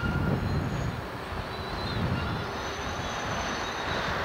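Articulated street trams running on street track: a steady rumble of motors and steel wheels on rails, mixed with city street noise. The rushing sound swells near the end as a tram passes close.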